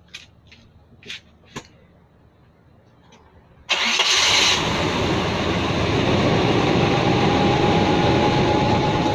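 A few faint clicks, then about four seconds in the 1989 Chevy S-10 Blazer's engine cranks briefly, catches and runs loudly and steadily, with the exhaust leak that the owner is asking about. A faint steady whine comes in a couple of seconds after it starts.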